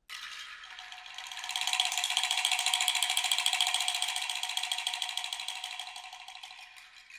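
Percussion rattle shaken in a dense, rapid clatter that starts suddenly, swells over the first two seconds and then slowly fades.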